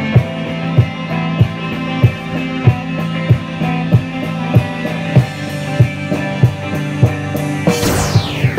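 Rock-style background music with a steady drum beat, about three hits every two seconds, over held guitar and bass notes. Near the end a falling swoosh drops steeply in pitch.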